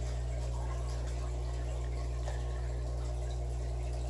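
Aquarium power filters running: a steady low electrical hum with a faint, even trickle of water.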